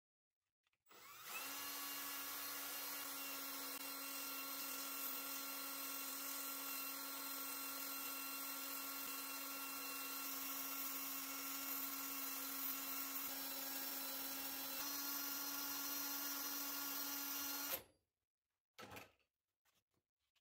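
Drill running at a steady speed as a makeshift lathe, spinning a small wooden dowel dial on a tape-wrapped hole saw bit while it is sanded. It starts about a second in, holds a constant whine with a slight pitch step near 15 seconds, stops abruptly near the end, and is followed by a couple of faint clicks.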